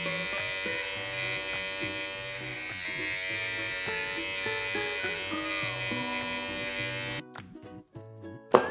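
Small electric pet clipper buzzing steadily as it trims the fur under a cat's chin, over background music; the buzz cuts off about seven seconds in.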